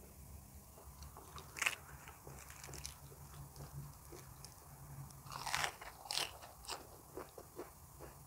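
Close-up chewing of a mouthful of raw shrimp and crisp fresh lettuce, with wet crunches. The loudest crunches come about one and a half seconds in and again around five and a half to seven seconds in.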